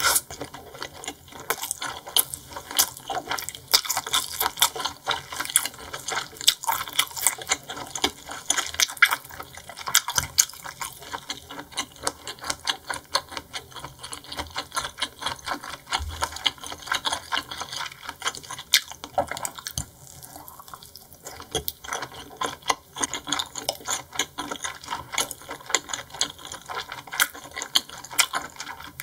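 Close-miked chewing of chewy seafood: a dense, irregular run of wet clicks and smacks from the mouth.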